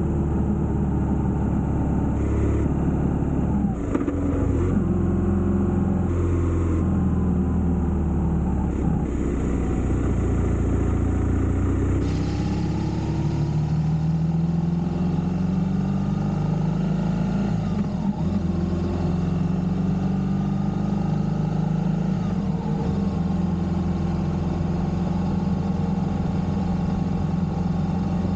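Motorcycle engine running at road speed. Its note dips and climbs again a few times as the bike changes speed or gear, over a steady rush of noise.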